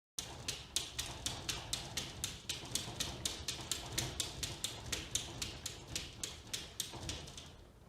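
A steady series of sharp taps or clicks, about three to four a second, over a low background noise, fading near the end.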